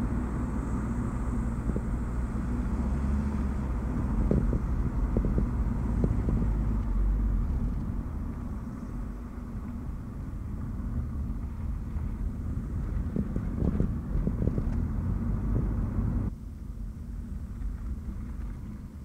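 A Nissan Note e-Power being driven: a steady low drone of road and drivetrain noise with scattered low thumps. The noise drops abruptly about sixteen seconds in.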